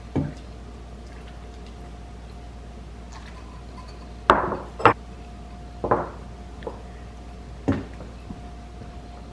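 Black ladle clinking against a stainless steel pot and ceramic soup bowls as soup is ladled out: about six separate sharp clinks, the loudest two close together a little past the middle.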